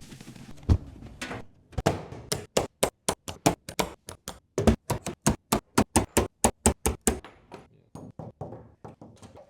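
Fast run of sharp knocks and clacks, about five a second, from tools and items being put into a toolbox; fainter and sparser near the end.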